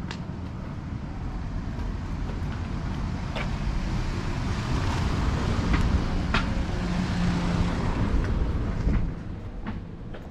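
A motor vehicle passing close by, its engine and road rumble growing louder over several seconds and then falling away abruptly about nine seconds in.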